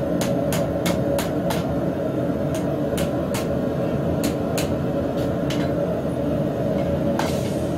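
Hammer blows on hot steel at the anvil, forging the leaf ends of a twisted square-stock handle: a quick run of about five strikes, then groups of two and three spaced out, over a steady low roar. A short hiss comes near the end.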